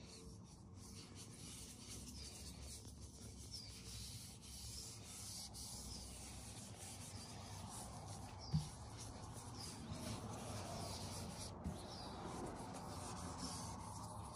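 A gloved hand rubbing wet finish into an end-grain walnut, maple and zebrawood cutting board, a faint repeated swishing of glove over wood. A single sharp knock a little past halfway, and a lighter one near the end.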